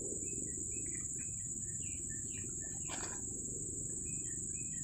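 Insects droning in one steady high tone, with scattered short bird chirps, over the low rush of a flowing stream. A brief rustle about three seconds in.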